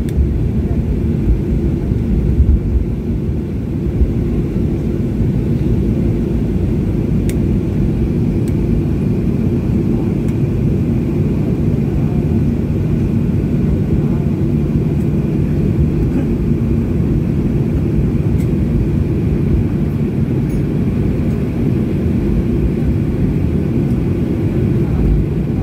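Cabin noise of a Boeing 737 rolling out on the runway just after landing: a steady low rumble of engines and wheels with a steady hum, a little louder and rougher over the first few seconds as the jet slows.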